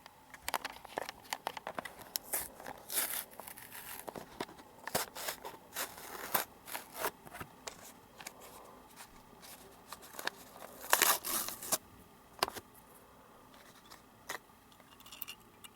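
Toy packaging being opened by hand: cardboard and plastic tearing, crinkling and scraping in irregular bursts, loudest about eleven seconds in.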